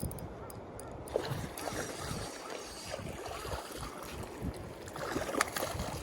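Wind rumbling on the microphone over moving water, with a few light clicks.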